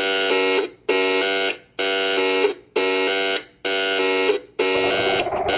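Alternative EAS alarm tone: a buzzy electronic beep repeating about once every 0.9 seconds, six times, each beep stepping in pitch partway through. A rough, noisy layer comes in under the beeps near the end.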